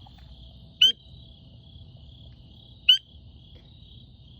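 A frog giving short, sharp, loud calls, twice, about two seconds apart. A steady, faintly pulsing high trill runs underneath.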